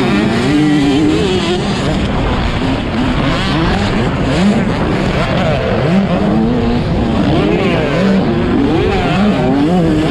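A field of 125cc motocross bikes racing, several engine notes overlapping and rising and falling as the riders rev, shift and back off around the track.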